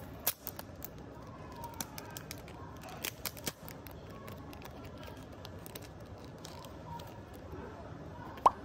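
Paper and foil trading-card packaging being torn and handled: a run of small crinkles and clicks, with a few sharper ones and one loud sharp snap near the end.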